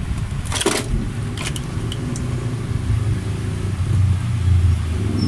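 A low, steady engine-like rumble that grows louder toward the end, with a short scrape about half a second in and a few light clicks from the TV's parts being handled.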